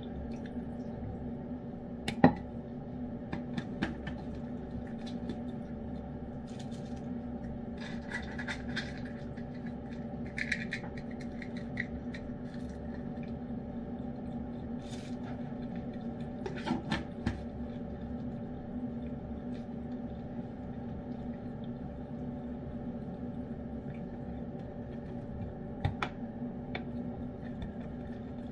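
A cat eating wet food from a ceramic dish: soft chewing and licking with a few sharp clinks and knocks, the loudest about two seconds in, over a steady low hum.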